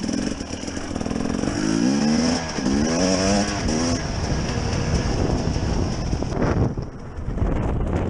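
2017 Husqvarna TE250's two-stroke single-cylinder engine under way, revving up twice in quick succession about two and three seconds in, then running on at a steadier throttle.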